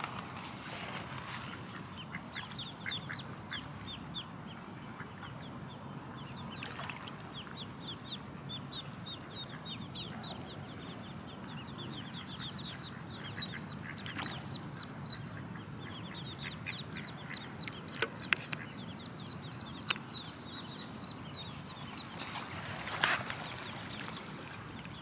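Ducklings peeping continuously: short, high, falling peeps, several a second. A brief knock near the end.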